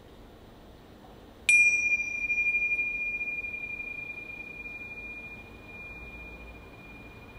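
A single struck metal chime rings out with a high, clear tone about a second and a half in, then slowly fades with a gentle pulsing.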